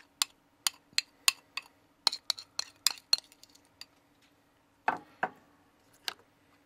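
Metal spoon clinking and scraping against a glass mixing bowl and a small round metal pan as thick cake batter is scraped out: a quick run of sharp clinks for the first three seconds or so, then a few louder knocks near the end.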